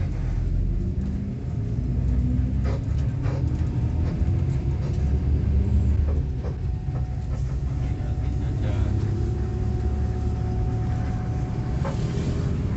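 Intercity bus's engine and road noise heard from inside the passenger cabin: a steady low rumble with a few short clicks and rattles.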